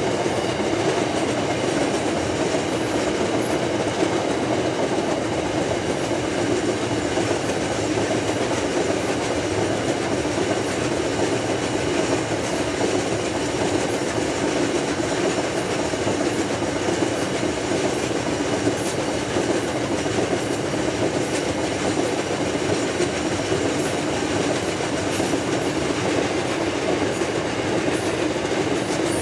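Loaded iron ore wagons rolling past: a steady rumble of steel wheels on the rails, with light clicking throughout.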